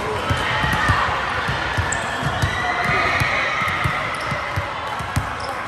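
Volleyballs bouncing and being hit on a wooden sports-hall floor, a steady run of irregular thumps, over the echoing chatter of many voices in the large hall.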